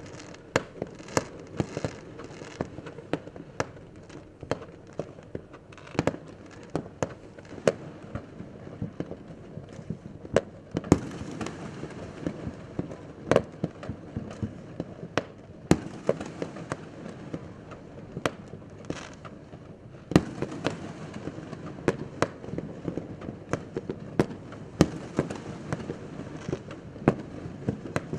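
Fireworks going off, many sharp bangs at irregular intervals over a steady low rumble of more distant bursts and crackling; the rumble grows louder about ten seconds in and again about twenty seconds in.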